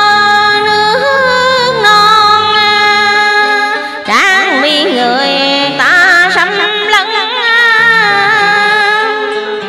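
A woman singing long, drawn-out ornamented notes with vibrato in Vietnamese cải lương (tân cổ) style, over a quiet karaoke backing track. The voice fades near the end.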